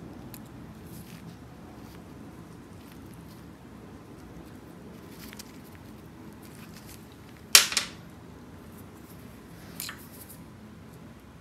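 Small fuel-pump parts being handled on a workbench: faint clicks, then one sharp clack about seven and a half seconds in and a lighter one near ten seconds, over a low steady hum.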